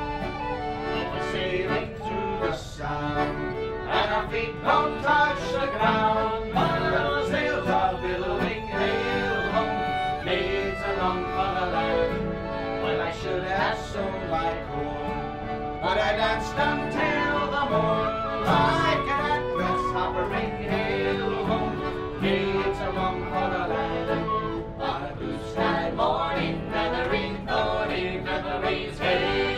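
A small acoustic band playing a folk tune live: a wooden whistle carries the melody over strummed acoustic guitar and fiddle.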